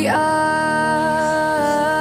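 Background pop song: a singer holds one long sung note with a slight waver in pitch over the backing music.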